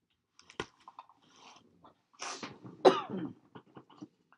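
A woman coughing: a sharp click under a second in, then a couple of harsh coughs just over two seconds in, the second the loudest.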